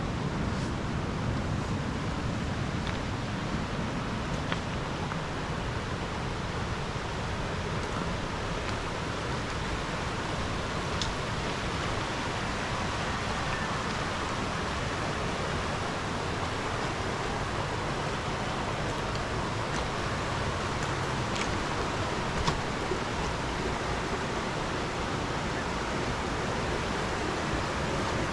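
Steady rain, an even hiss with a few faint sharp ticks scattered through it.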